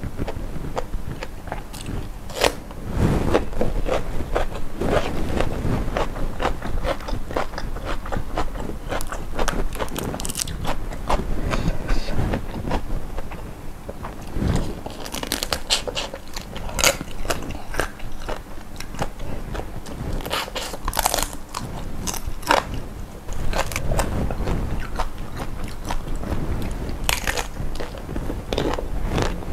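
Close-miked eating: repeated crunchy bites and chewing, with sharp irregular crackles throughout.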